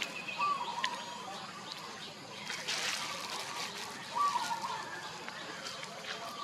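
Two short wavering animal calls, one about half a second in and one about four seconds in, over outdoor ambience with a brief rustling burst and a few sharp clicks.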